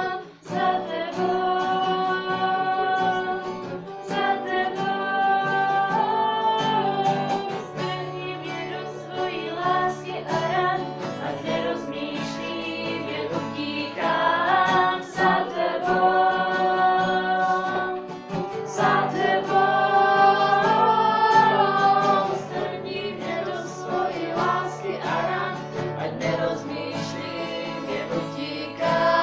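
A youth choir singing a Czech Christian worship song with guitar accompaniment, in long phrases of held notes.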